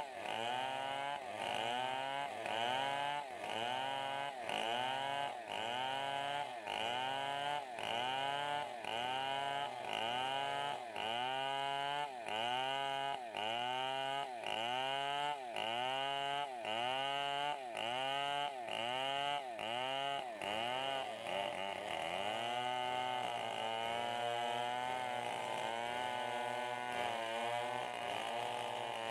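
Big two-stroke chainsaws, a STIHL 070 among them, ripping lengthwise through a log to saw it into planks. The engine pitch rises and falls about once a second as the saw works in the cut. About two-thirds of the way through the rhythm turns less regular as a second saw cuts at the same time.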